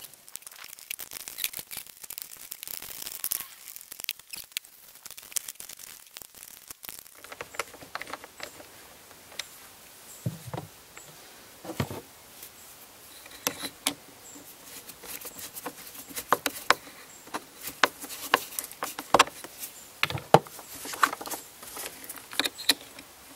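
Irregular small clicks, scrapes and rustling of hands working plastic engine-bay parts: a mass airflow sensor being pushed back into its plastic air intake duct and its connector refitted. There are a couple of louder knocks about halfway through.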